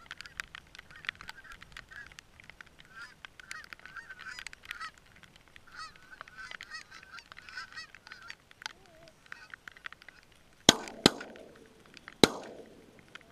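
A flock of geese honking over and over, then three shotgun shots in quick succession near the end, each with an echoing tail.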